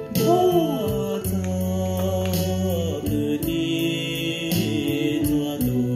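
Background music: a sung, chant-like melody over held chords, with a light steady beat.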